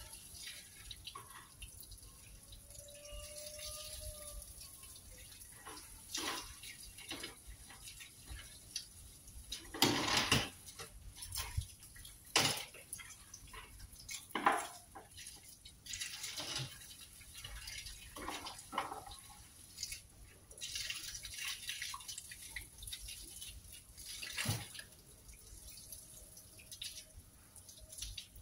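Water from a garden hose splashing and dripping onto rags and a carpet as they are rinsed: irregular spatters, the loudest about ten and twelve seconds in.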